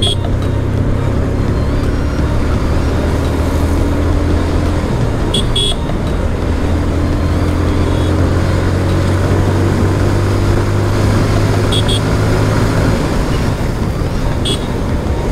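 Single-cylinder TVS Apache RTR motorcycle engine running steadily while cruising, heard from the rider's seat with wind noise over it. A few short horn toots sound, around the middle and near the end.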